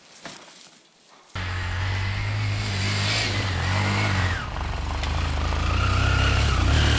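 After a quiet second or so, an enduro motorcycle engine starts sounding suddenly and loudly and keeps running, its revs rising and falling twice as the bike rides along.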